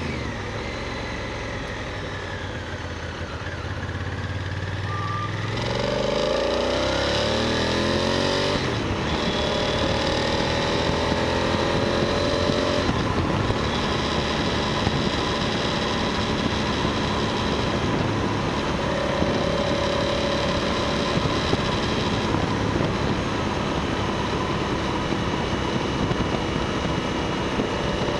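Motorcycle engine and wind rush heard from the bike while riding. The engine pitch drops near the start, then climbs in several rising sweeps as the bike accelerates between about six and thirteen seconds in, and from there it runs at a steady cruise.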